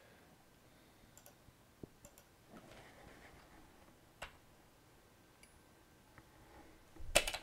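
Faint, scattered computer mouse clicks, then near the end a quick run of keyboard keystrokes as text is typed.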